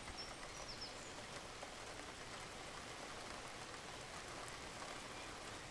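Steady, soft rain falling, with a few faint high bird chirps in the first second.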